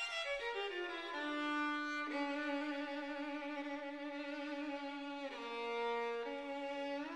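Background music: a slow solo melody on a bowed string instrument, a quick falling run of notes into long held notes with slight vibrato.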